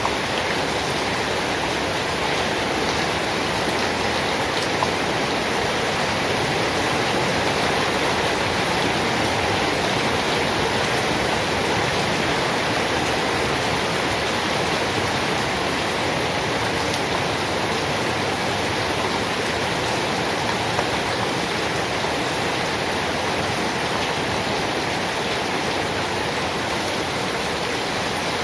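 Steady, continuous rainfall: an even hiss of heavy rain with faint scattered drop ticks.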